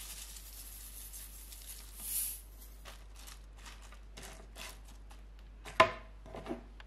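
A spoon tossing a chopped cabbage and cucumber salad in a plastic bowl: short rustling, scraping strokes of leaves and spoon against the bowl, after a soft hiss over the first couple of seconds. A sharp knock about six seconds in is the loudest sound.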